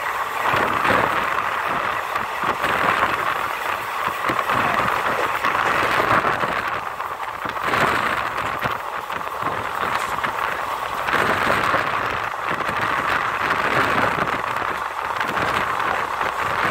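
Steady rushing noise of a passenger train running at speed, heard from its open door: wheels on the rails with scattered clicks, mixed with wind. Near the start the last wagons of a freight train on the next track pass close by.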